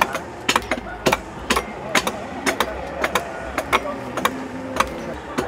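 Repeated sharp strikes, about three a second and sometimes in quick pairs, with faint voices in the background.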